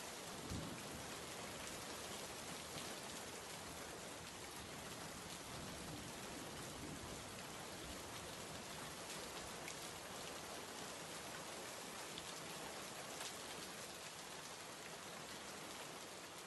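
Steady rain falling, an even hiss with scattered tiny drop ticks. A dull low thump comes just after the start.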